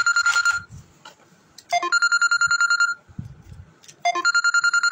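Telephone ringing with an electronic trill ringtone: a high tone pulsing rapidly, in rings of about a second, about two and a half seconds apart.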